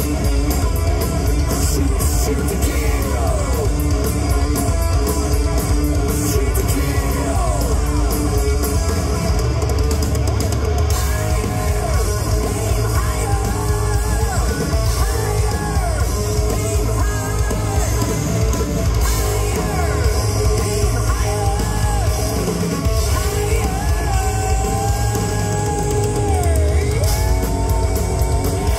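Heavy metal band playing live: distorted electric guitars, bass and drum kit with sung vocals, loud and continuous.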